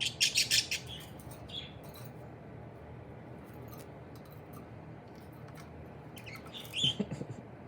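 Budgerigar making a quick burst of sharp high chirps in the first second, then scattered faint clicks, with another short chirp near the end.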